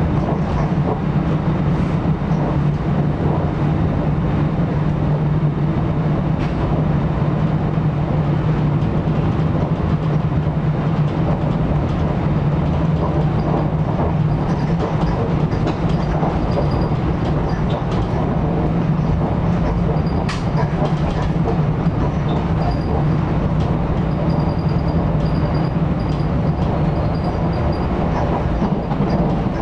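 Commuter train running at speed, heard from inside the passenger coach: a steady rumble of wheels on rails with a constant low hum. A faint high whine comes and goes in the second half.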